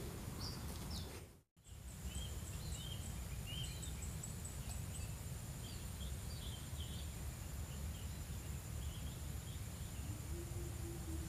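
Outdoor riverbank ambience: small birds chirping in short, scattered calls over a steady low rumble, with a faint, even high insect drone. The sound cuts out briefly about a second and a half in.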